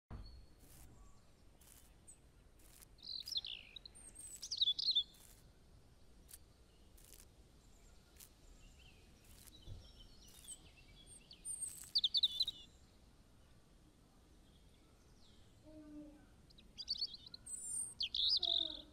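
Birds chirping in a few short bursts of high calls over a faint steady outdoor background hiss. Faint clicks come about once a second through the first half.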